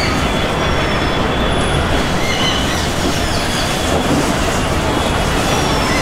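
Loud, steady rushing noise of passing vehicles, with a few faint, short high-pitched squeaks here and there.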